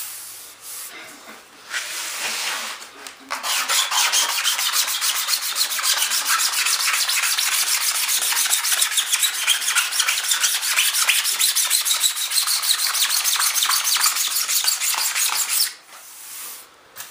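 Hand rubbing down the cured resin surface of a fiberglassed model-airplane wing panel in fast, steady back-and-forth strokes, many a second. A few lighter rubs come first, the steady stroking starts about three seconds in, and it stops abruptly near the end.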